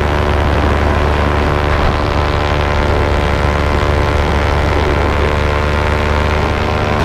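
Two-stroke paramotor engine and propeller running steadily in flight, an even drone with no change in power.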